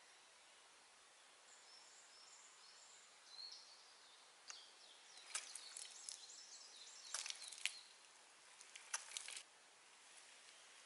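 Quiet woodland ambience with faint high bird chirps early on. From about the middle comes a run of dry crackling clicks and rustles that stops abruptly near the end.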